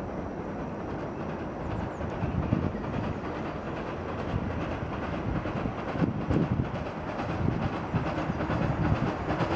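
Steam locomotive hauling a train of coaches approaches, working with steam at the chimney, its running noise growing steadily louder.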